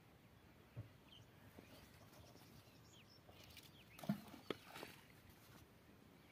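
Near silence with faint scattered bird chirps, and two short sharp knocks about four seconds in, half a second apart.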